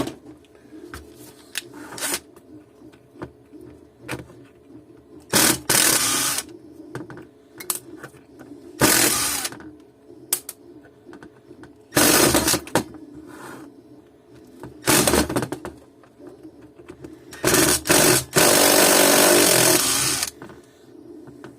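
Cordless impact driver run in five short bursts, the last and longest about three seconds, undoing the back-cover screws of an LPG evaporator, with small clicks of handling between the bursts.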